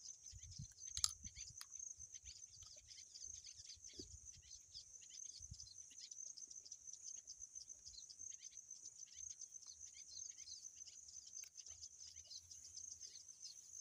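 Faint, steady high-pitched insect chorus with many quick chirps over it. A single sharp crunch about a second in as a bite is taken from a piece of raw peeled cassava.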